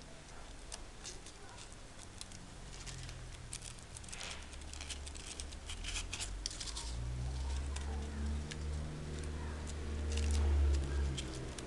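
Crepe paper rustling and crinkling in the hands as a paper leaf and strip are wrapped around a wire flower stem, with many small crackles. A low hum in the background grows louder in the second half.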